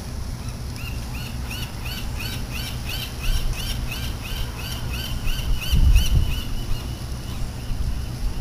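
A bird calling a rapid series of short, high, arched notes, about three or four a second, which run together into one held note near the end. Low wind noise on the microphone, with a gust about six seconds in.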